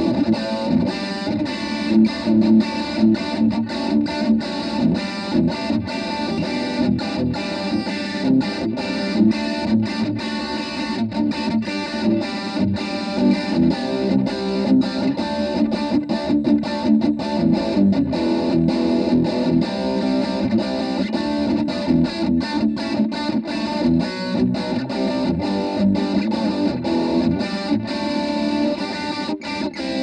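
Electric guitar played through a Randall NB15 combo amp on its distortion channel with the gain turned all the way up and the solo boost off: continuous heavily distorted picked riffs and chords.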